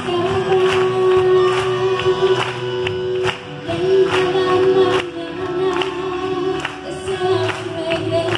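Live worship band playing through a PA: a woman sings long held notes over electric guitars, bass and a steady drum beat.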